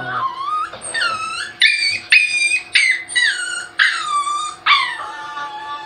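Small dog whining and crying in a string of about nine high, wavering cries, many sliding down in pitch, as its paw is clipped: the dog objecting to the grooming. Electric dog-grooming clippers hum steadily underneath.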